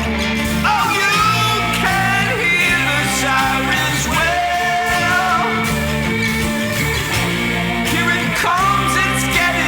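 Rock music from a full band, with a high lead line that bends and slides up and down in pitch over a steady bass and chords.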